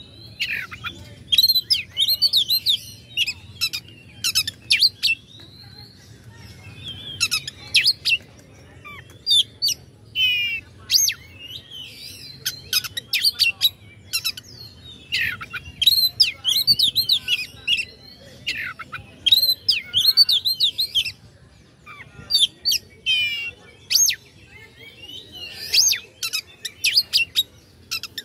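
Oriental magpie-robin (kacer) singing a loud, varied song full of mimicked phrases: bursts of whistled glides and sharp, clipped notes broken by short pauses.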